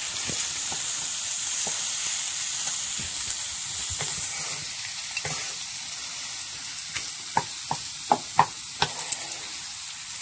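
Potato masala sizzling gently in oil in a pan on a low gas flame while a wooden spatula stirs and scrapes through it. There are several sharper taps of the spatula against the pan about three-quarters of the way in.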